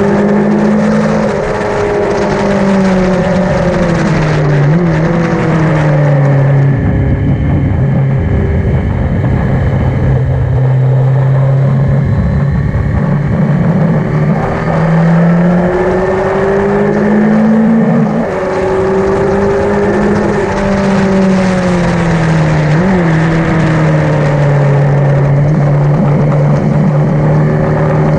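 Yamaha XJ900N's air-cooled inline-four running hard on a circuit. The engine note climbs with revs and drops sharply at each gear change, over steady wind noise.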